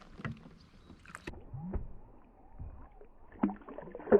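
A few scattered knocks and bumps with light rustling, the sound of handling aboard a plastic fishing kayak.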